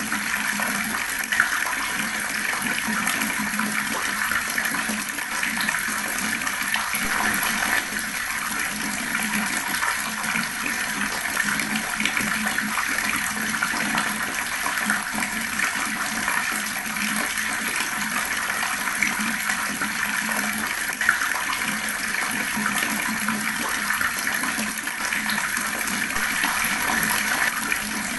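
Fast-flowing water rushing steadily, an even splashing rush without pause.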